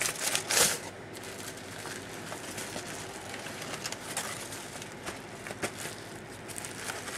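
Packing paper crinkling and rustling at the start, then soft occasional rustles and crackles of a bubble-wrapped package being handled over a steady background hiss.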